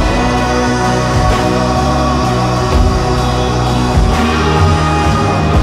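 Background music: a band track with sustained bass and chord notes and a drum hit every second or so.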